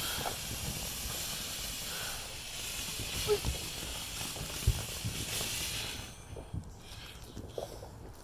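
Ground firework fountain hissing steadily as it sprays sparks, then dying out about six seconds in; two short low thumps come partway through.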